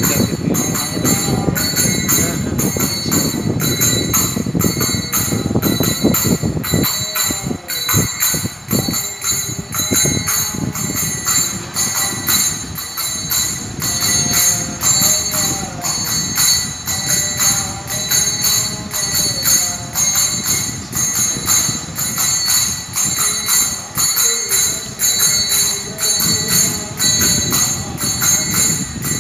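Devotional music: jingling metal percussion keeps a steady ringing beat, about three strokes a second, under a singing voice.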